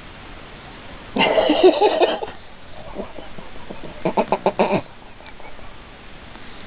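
Domestic cat groaning as its face is massaged: one wavering groan about a second in, then a shorter stuttering groan of rapid pulses around four seconds in.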